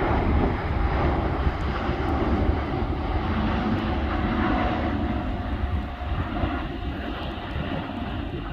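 Airbus A350-900's Rolls-Royce Trent XWB turbofan engines rumbling with a faint steady whine as the airliner climbs away after take-off, heard from the ground. It eases off a little after about six seconds.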